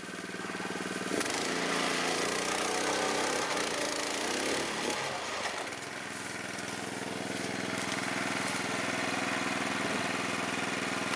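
Small petrol engine running steadily, driving a portable rope winch that hauls a shot elk out of the undergrowth. Its pitch wavers over the first few seconds, then holds level.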